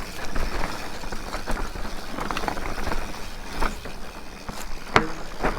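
Mountain bike riding down a rough, rutted dirt trail: tyre noise over the dirt with the bike rattling and clicking irregularly, and a sharp knock about five seconds in.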